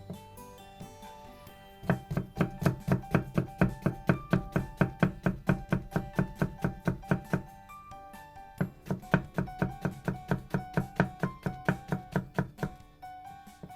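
Knife chopping quickly and evenly on a cutting board, about four strokes a second, with a brief pause in the middle, over background music.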